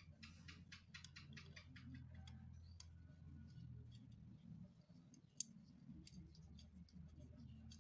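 Faint small metal clicks and ticks as a bolt is handled and fitted into a sewing machine's motor bracket: a quick run of ticks in the first two seconds, scattered clicks after, and one sharper click about five and a half seconds in, over a low steady hum.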